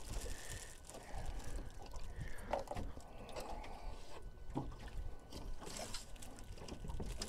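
Wind rumbling on the microphone and water lapping against a boat, with a few light knocks and rustles as a wire catfish net is hauled out of the water over the gunwale and a plastic bait bag is handled.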